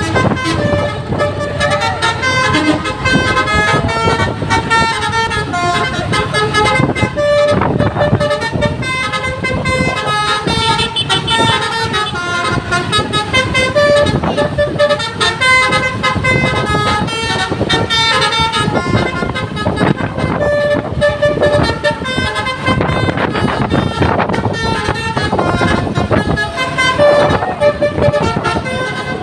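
A bus's Basuri V3 telolet horn playing a tune: chords of horn notes that hold and step from pitch to pitch, over the noise of the vehicle.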